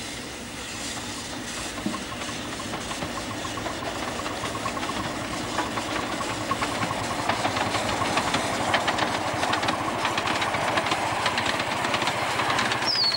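Miniature live-steam locomotive getting under way with riders aboard: steam hissing with quick exhaust beats and wheels clicking on the rails, growing louder as it gathers pace. A shrill high note starts near the end.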